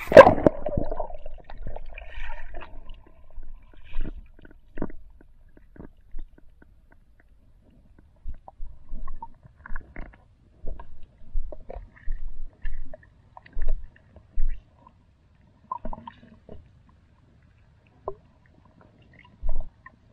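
Waterproofed camera going under water: a loud rush of water in the first second as it plunges in, then muffled under-water sounds, scattered low thumps, clicks and gurgles as the spearfisher moves along the canal bottom.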